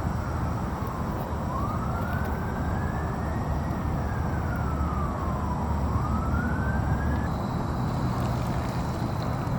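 A siren wailing, a single tone slowly falling and rising over several seconds before it stops about seven seconds in. A steady low rumble runs underneath.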